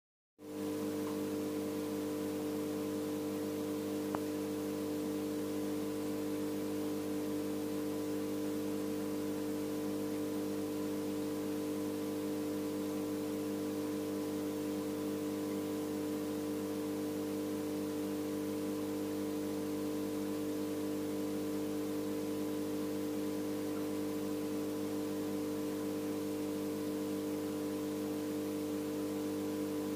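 Steady electrical hum from the aquarium's pump equipment, with a faint even hiss; one small click about four seconds in.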